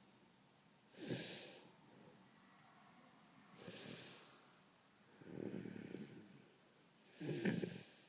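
A man snoring in his sleep: four snoring breaths about two seconds apart, the third the longest and the last the loudest.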